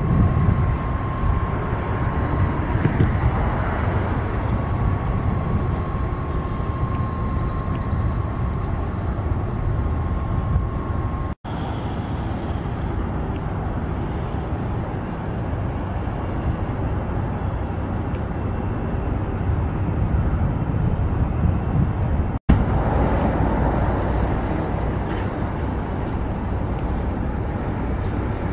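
Jet airliner engines heard at an airport: a steady low rumble with a high whine over it as a Boeing 747 freighter lands. After a sudden cut comes the rumble of a three-engine FedEx freighter rolling on the ground, and after another cut that of a Boeing 777 on approach.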